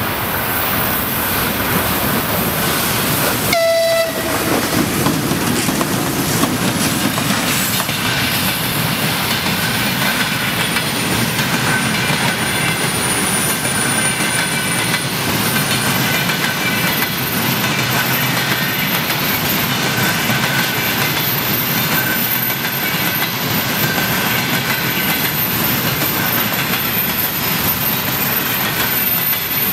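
Freight train behind a VL10U two-section electric locomotive rolling past, with a continuous rumble and clatter of wheels over the rail joints and some high wheel squeal. A short horn blast sounds about four seconds in.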